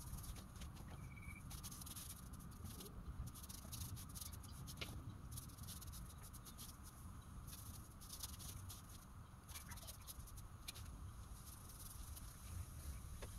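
Faint, soft scratchy strokes of a paintbrush spreading finish over timber panels, over a low steady rumble.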